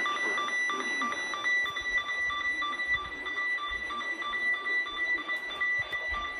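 Electronic alert beeping from EAS monitoring equipment: a steady high tone with a shorter beep repeating about two to three times a second. The beeping stops just before the end.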